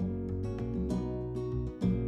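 Background music: plucked acoustic guitar notes and chords in a steady rhythm.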